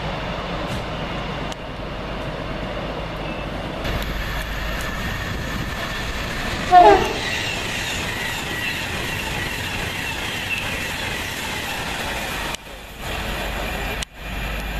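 Passenger train passing close at speed, with steady rail and running noise. A short, loud two-tone horn blast about seven seconds in drops in pitch as the train goes by. The sound changes abruptly a few times where the footage is cut.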